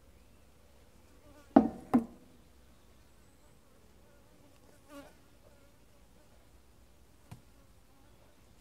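Honeybees buzzing steadily around the hive. Two sharp knocks come about a second and a half in, half a second apart, and are the loudest sounds; a softer knock and a click follow later.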